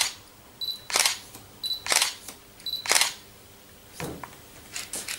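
Hairdressing scissors cutting wet hair, snipping about once a second: each snip is a brief high ring followed by a sharp cut.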